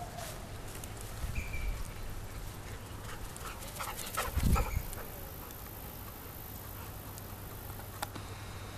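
Black Labrador giving a couple of brief, high whimpers over a light background hiss, with a loud thump and rustle about halfway through.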